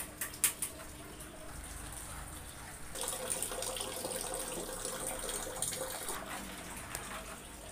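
A knife chops once on a wooden cutting board about half a second in. From about three seconds in, water sloshes steadily as hands work in a basin of water, washing snails.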